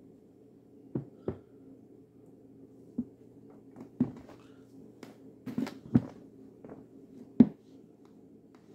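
Nike Air Max sneaker soles stamping and stepping on a piece of bread on a wooden floor: a series of sharp knocks and taps, the loudest about seven seconds in, over a steady low hum.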